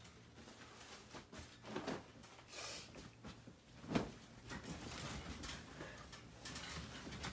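Bedding and mattress sounds as two people move onto a bed: a few soft swishes of covers, a single thump about four seconds in, then rustling as a blanket is pulled over.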